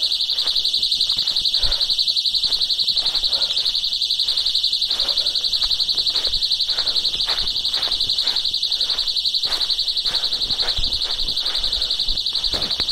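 Small battery tripwire siren sounding after the tripwire has been pulled: a loud, high-pitched electronic alarm that pulses rapidly without a break.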